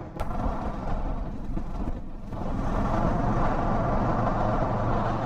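Kawasaki Versys 650 motorcycle's parallel-twin engine running at road speed, mixed with wind and road noise, with a sharp click just after the start; it grows louder about two and a half seconds in.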